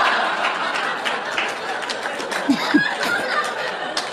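Audience laughing after a stand-up punchline, loudest at the start and slowly dying down, with a few single voices standing out near the middle.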